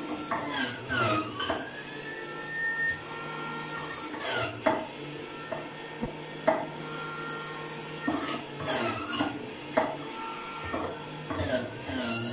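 Electric centrifugal juicer running and grating peach and carrot pieces pushed down its feed chute. The motor's whine dips and recovers several times as each load of fruit hits the spinning grater, with sharp knocks as pieces are pressed in.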